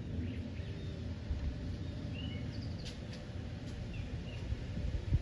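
Outdoor background noise, a steady low rumble-like haze, with a few short high bird chirps scattered through it.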